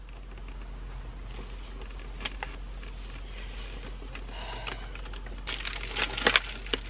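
Paper and plastic rustling as a paper takeout bag and a bouquet of wrapped tulips are handled and lifted out of a car, with a few light clicks and a louder burst of rustling about six seconds in. A steady faint hiss lies underneath.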